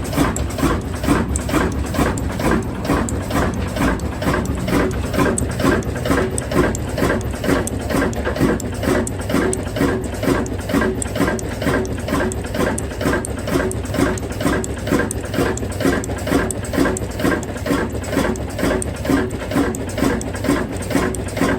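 Diesel engine running with a slow, steady, regular beat of about two to three pulses a second.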